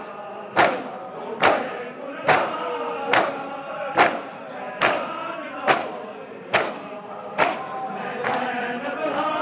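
Crowd of Shia mourners beating their chests in unison (matam), a sharp slap a little under once a second, with men chanting between the strikes. Near the end the strikes stop and the chanting carries on.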